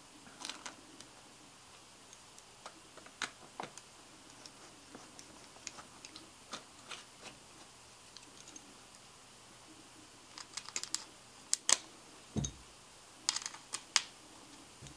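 Light, irregular clicks and ticks of engine-mount screws being started by hand and turned with a small screwdriver in a metal chassis plate. The clicks come in a quick flurry about ten to twelve seconds in and again near the end, with one dull thump about twelve seconds in.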